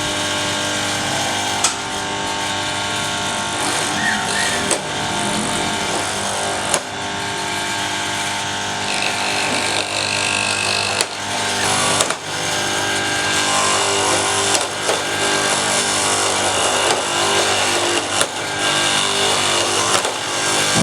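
Electric power tool running steadily with a motor hum and grinding noise, broken by a few short knocks.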